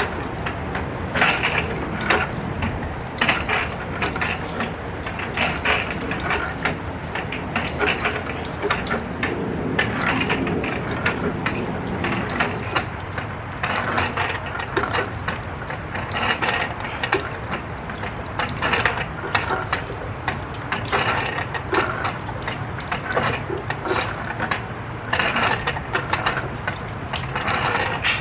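Gym equipment's mechanism squeaking and clanking in a steady rhythm, about once every two seconds, each cycle a short falling squeak with a clatter, as with repetitions on a weight machine.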